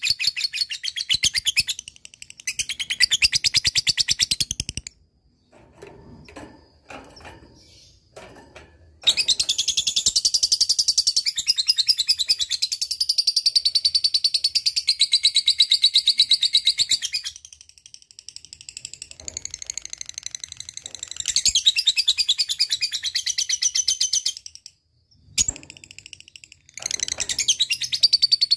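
Female lovebird singing its ngekek: shrill, very fast chattering trills in several bouts, the longest about eight seconds, separated by short pauses. Fainter clicks and scratching sounds fill the gaps.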